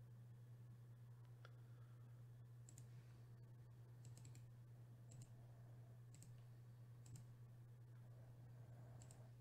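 Near silence with a steady low hum, broken by faint clicks from working a computer: a few single clicks and a quick run of three about four seconds in.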